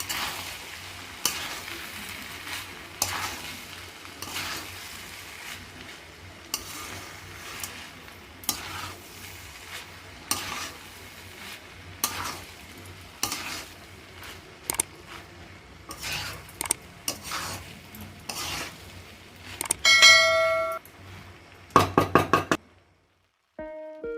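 A spatula stirring and scraping fried rice in a frying pan over a low sizzle, with a scraping stroke every second or two. Near the end a metal ding rings briefly, followed by a quick run of sharp knocks.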